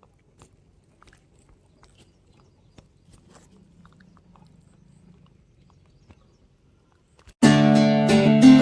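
Faint scattered clicks over a low hiss, then, about seven and a half seconds in, strummed acoustic guitar music starts suddenly and loudly.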